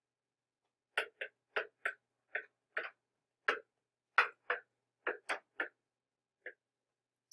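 Stylus tapping and clicking on a tablet screen while handwriting numbers: about fourteen short, sharp ticks in an uneven rhythm, starting about a second in and ending with a single tick near the end.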